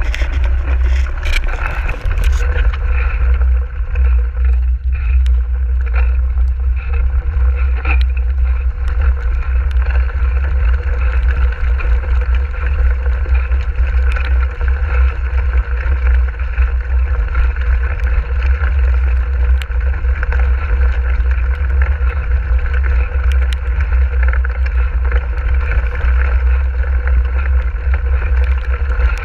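Mountain bike rolling fast over a wet, muddy trail: a continuous heavy rumble of wind buffeting the camera microphone over tyre noise through mud and puddles, with scattered short clicks and rattles.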